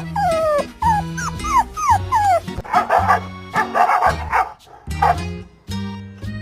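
Dog whining in a run of about five high cries that each fall in pitch, then a cluster of short yips and barks in the middle, over background music.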